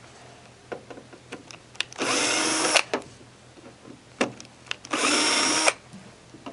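Drill with a T20 Torx bit backing out sheet-metal cabinet screws: two short runs of under a second each, about three seconds apart, with light clicks before each run.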